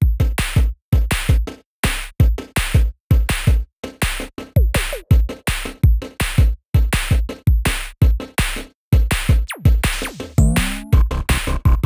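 Electronic background music with a choppy drum-machine beat and deep bass kicks, with a falling sweep about nine and a half seconds in.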